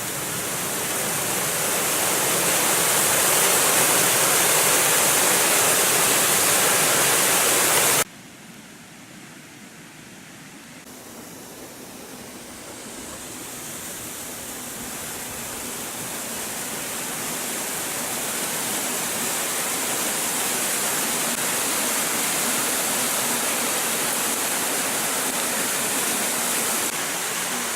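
Waterfall crashing down a rock face: a steady rushing hiss. About eight seconds in it cuts abruptly to a much quieter take that slowly grows louder again.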